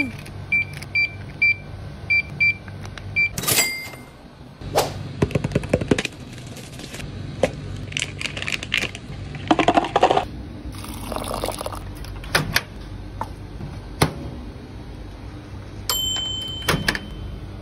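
A run of short, evenly spaced electronic beeps from a checkout scanner as groceries are rung up. Then plastic packaging crinkles with sharp clicks, and near the end a longer electronic beep comes from a microwave oven.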